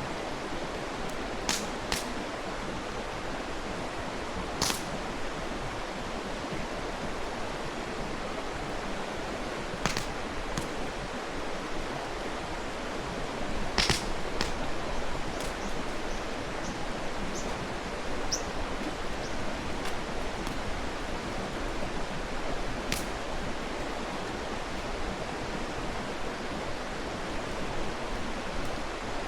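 Mountain stream rushing steadily, with a wood campfire crackling in sharp pops every few seconds, the loudest pop about fourteen seconds in.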